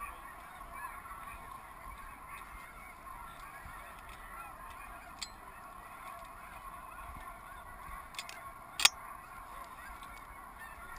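A large flock of snow geese calling, a continuous distant chorus of many overlapping honks. A single sharp click sounds about nine seconds in.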